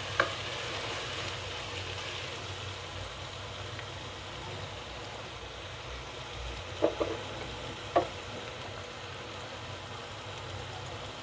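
Chopped onion frying in oil and ghee in a pot, a steady sizzling hiss, with a few short knocks just after the start and again about seven and eight seconds in.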